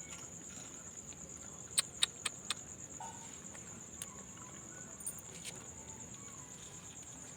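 Crickets trilling steadily in one unbroken high-pitched band, with four sharp clicks close together about two seconds in and a few fainter clicks later.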